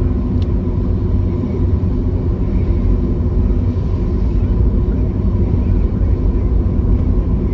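Steady low rumble of a car driving, with engine and tyre noise heard from inside the cabin.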